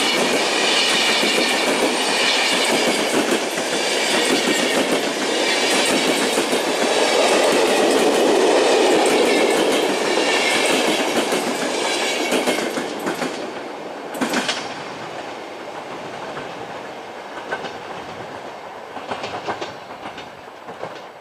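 Passenger train coaches passing at speed, with a dense rolling rumble and wheels clacking over rail joints. After about twelve seconds the noise fades as the end of the train goes by and moves away, with a few last clacks near the end.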